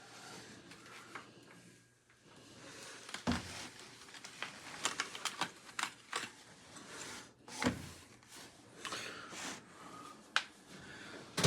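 Kitchen handling clatter: irregular clicks and knocks of dishes and utensils being moved about, with two louder knocks about three and eight seconds in.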